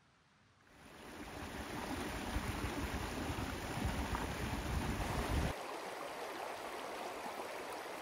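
Creek water rushing, running high after heavy rain. A deep rumble under the water cuts off suddenly about five and a half seconds in, leaving a lighter steady rush.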